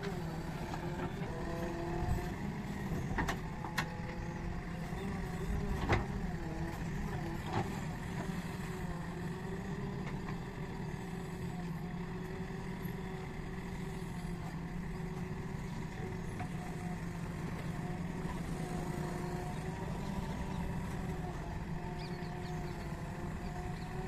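JCB 3DX backhoe loader's diesel engine running steadily while the backhoe digs, with a few sharp knocks in the first eight seconds.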